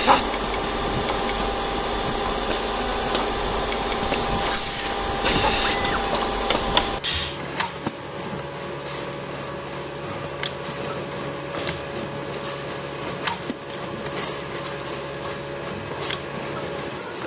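Workshop machinery running with a steady whine for about seven seconds, then cutting sharply to a quieter machine hum with scattered clicks and taps.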